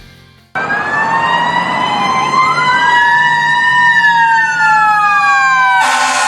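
Electronic emergency sirens wailing, starting suddenly about half a second in: several slow tones rising and falling at once and crossing each other. A harsher, buzzing tone joins near the end.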